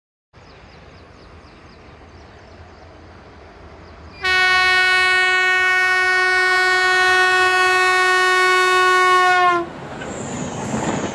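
Diesel-electric WDP-3A locomotive's horn sounding one long steady blast of about five seconds, dipping slightly in pitch as it cuts off. The horn then gives way to the rising rumble and clatter of the train's wheels on the rails as it passes close by.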